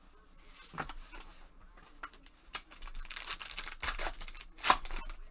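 Plastic wrapper of a 2021 Topps baseball card pack being torn open by gloved hands. It crinkles and rips in short bursts, with one sharp, loud rip near the end.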